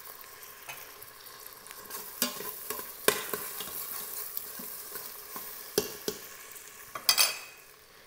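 Chopped tomatoes sizzling in hot oil with onions in an Instant Pot's stainless steel inner pot on sauté, being stirred. The spatula scrapes and knocks against the pot a few times, loudest near the end.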